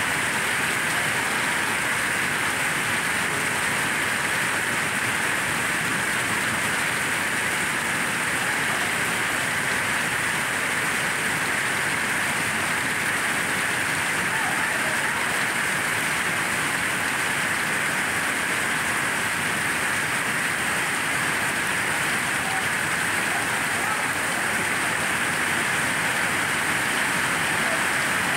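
Hailstorm pelting a lake's surface and the surrounding shore: a dense, steady hiss of countless impacts that never lets up.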